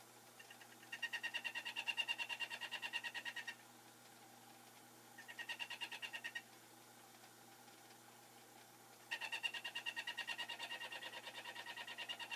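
Atlas horizontal milling machine running with a steady hum while its stack of small slitting saws cuts a slot in a 3C collet blank under light cuts: three spells of rapid, even chattering as the saws bite, about a second in, around the middle, and from near the end on.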